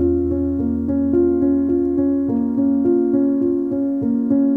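Background music: a keyboard playing a steady run of repeated notes, about four a second, over a held low tone.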